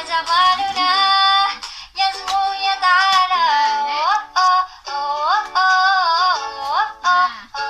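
A high female voice singing a song in phrases with sliding notes, with short breaks between the phrases.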